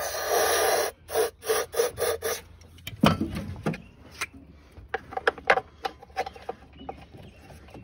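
Aerosol can spraying through its straw into a snowmobile engine's spark plug hole: one hiss of about a second, then several short bursts. Then scattered clicks and knocks as the spark plug and plug cap are handled.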